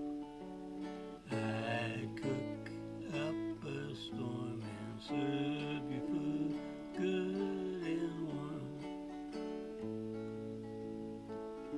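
Epiphone semi-hollow electric guitar playing an instrumental passage of picked notes over held chords, with some notes bending in pitch.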